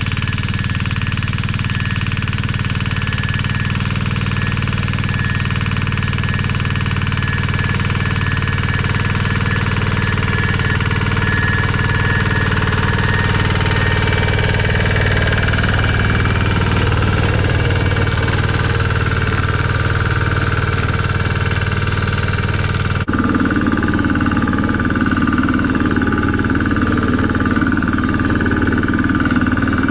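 Pasquali two-wheel walking tractor running steadily under load while its rotary tiller works the soil between artichoke rows. About three-quarters of the way through the sound shifts abruptly and becomes slightly louder and fuller.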